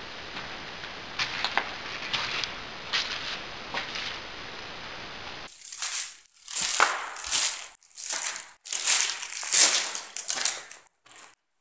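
Loud crunching and crumpling noises in irregular bursts, starting abruptly about halfway through. Before that there is a steady faint hiss with a few light clicks.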